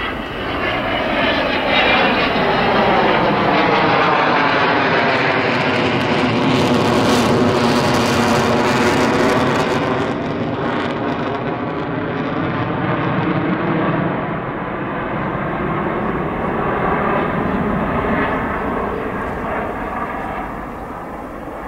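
Avro Vulcan XH558's four Rolls-Royce Olympus turbojets running at display power as the delta-wing bomber passes overhead. The jet noise swells over the first couple of seconds and stays loud, with a sweeping, phasing rush as it passes, then fades off near the end.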